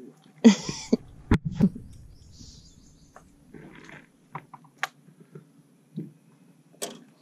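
Handling noise as a small bream is unhooked by hand in a boat: a short rustling burst near the start, a couple of low thumps about a second and a half in, then a few scattered sharp clicks.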